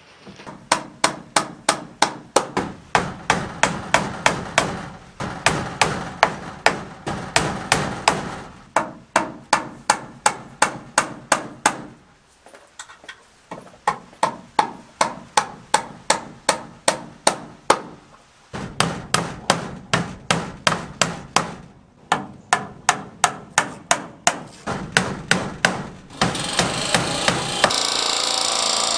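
A hammer driving nails into wood: runs of evenly spaced blows, about three a second, broken by short pauses. Near the end the hammering gives way to a steady hissing noise.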